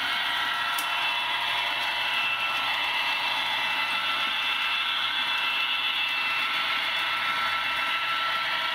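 H0-scale model of a Santa Fe EMD GP30 diesel locomotive running along the track: a steady, thin-sounding diesel engine sound from its onboard sound decoder, mixed with the model's running noise on the rails.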